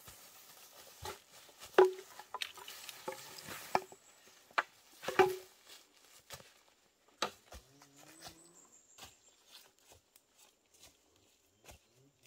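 A bundle of green bamboo poles knocking and clattering as it is hoisted onto a shoulder and carried. Its two loudest hollow knocks come about two and five seconds in, mixed with footsteps rustling through dry bamboo leaves that grow lighter and sparser in the second half.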